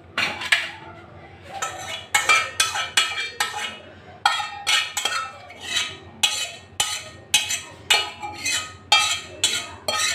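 A metal utensil scraping and clinking against a steel cooking pot as cooked instant noodles are served out into a bowl. It is a quick run of short scrapes and clinks, two or three a second, some with a brief metallic ring.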